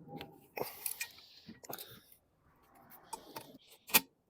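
Scattered light clicks and knocks from hands handling car wiper arm parts and plastic clips, with a sharper click about four seconds in.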